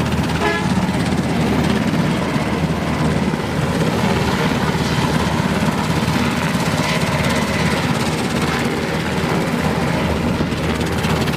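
UH-60 Black Hawk helicopter running: a loud, steady drone of its engines and rotor.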